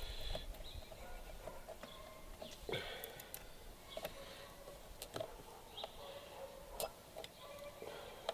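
Light, scattered clicks and taps of hands handling cables and small plastic fittings in an RC boat's radio box and engine bay.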